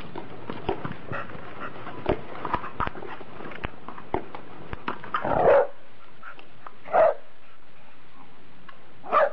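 Dog barking: three loud single barks, roughly two seconds apart, in the second half. Before them comes a run of short, scattered clicks and knocks.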